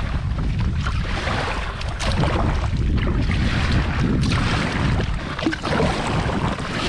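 Kayak paddle strokes splashing in the sea every second or two as a fishing kayak is paddled along. Steady wind rumble on the microphone runs under them.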